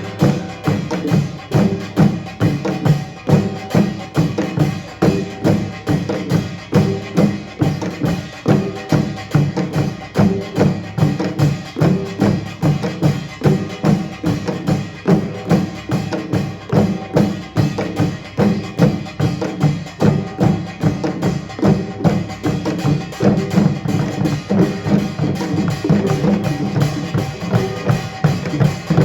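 Korean pungmul percussion band playing a fast, driving rhythm of closely packed drum strokes that goes on without a break.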